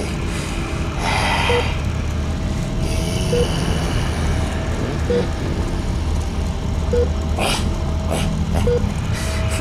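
Steady low rumble with a short beep repeating about every two seconds.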